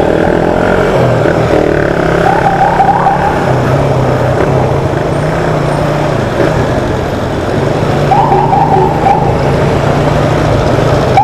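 Steady vehicle engine and road noise. Twice, about two seconds in and again near the end, an escort siren gives short rapid warbling yelps as a VIP convoy passes.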